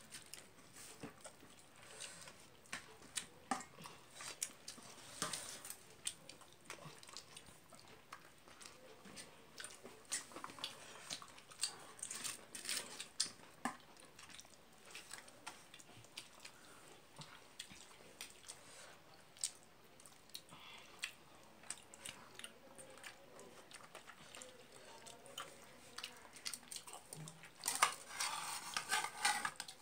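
A person chewing and eating rice by hand from a steel plate: wet mouth sounds and scattered short clicks, busiest near the end.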